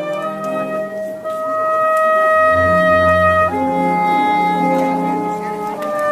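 Brass and woodwind band playing live under a conductor: a long held melody note that steps up once about halfway through, over moving bass notes.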